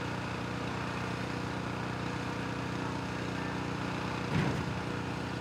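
Forklift engine running steadily at low speed while it moves a trailer axle into position, with a brief louder sound about four seconds in.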